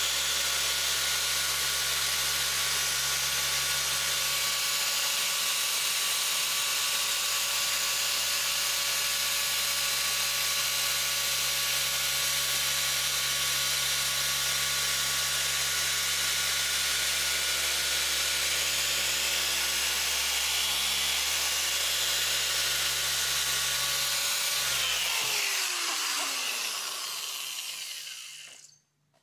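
Rotary polisher running steadily while compounding car paint, then switched off near the end and winding down, its pitch falling until it stops.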